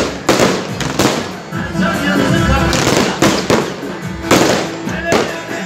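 Aerial fireworks bursting overhead, several sharp bangs a second or so apart, with music playing underneath.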